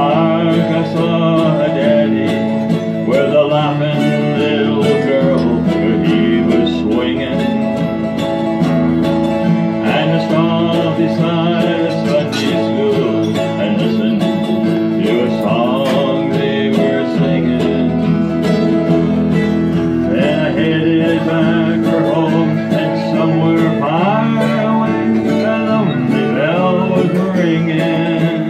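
Acoustic guitar playing a country tune, with a melodic line sliding between notes over it.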